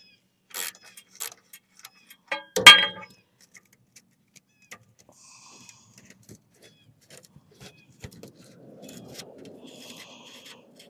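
Metallic clinks and clanks of hand tools and hardware while bolts are worked loose on a wheelbarrow, with one loud ringing clank about two and a half seconds in. A faint scraping follows near the end.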